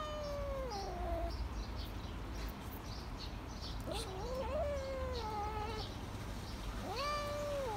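Cat yowling in three long, drawn-out calls: the first slides down in pitch, the second wavers and falls, and the last rises and then holds. It is the warning yowl of a cat quarrelling with other cats.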